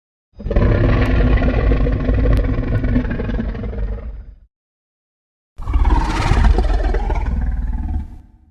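Two roars of a fictional giant sea-dragon monster, each with a deep rumble underneath. The first lasts about four seconds; the second starts after a second of silence and lasts about three.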